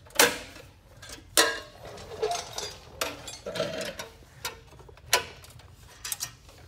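Sharp metallic clicks and clinks as a spring puller hooks and pulls the steel exhaust springs off a Polaris RZR XP Turbo's muffler. The loudest click comes just after the start and another about a second and a half in, with lighter ticks between.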